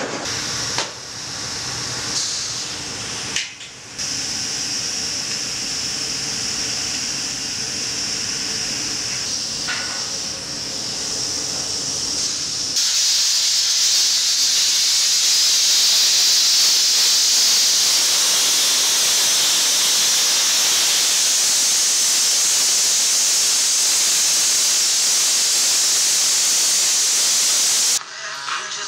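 Sandblasting a sculpture: a loud, steady hiss of air and abrasive from the blast nozzle that starts abruptly partway through and cuts off near the end. Before it, quieter mixed noise.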